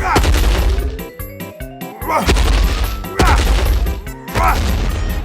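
A series of loud crash and impact hits, about four in a row, over background music.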